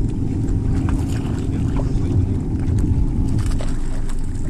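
Wind rumbling over the camera microphone on an open boat deck, with a faint steady hum underneath and a few light clicks.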